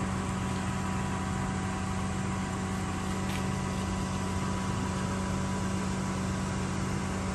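Engine of the well service truck's pipe-pulling rig idling steadily, a constant low hum with no change in speed.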